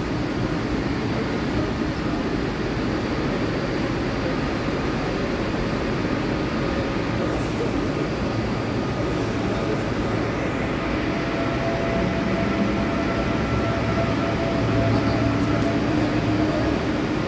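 DB class 423 S-Bahn electric multiple unit rolling slowly into a platform and coming to a stop, with a faint whine in the last few seconds as it slows.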